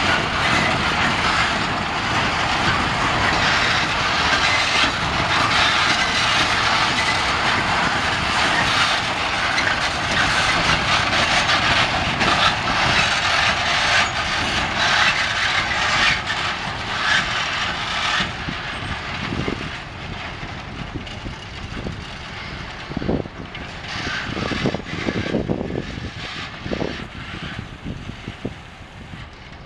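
Wheels of a slow freight train's multi-bogie heavy-load wagon rolling and clattering over the track. The noise fades from about two-thirds in, leaving scattered knocks as the train moves away.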